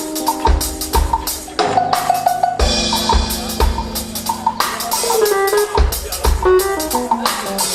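A small band playing: a drum kit with bass drum, snare and cymbals keeps a steady beat under piano and double bass lines, with a cymbal wash for a couple of seconds near the middle.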